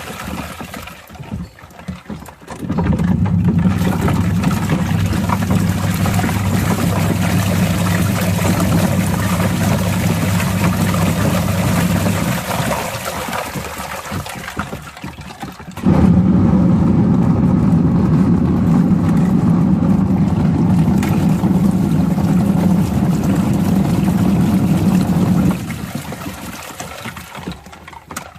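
Washing machine running with water churning over a steady motor hum. It fades out about two thirds of the way through the first half, starts up again abruptly about 16 seconds in, and stops a few seconds before the end.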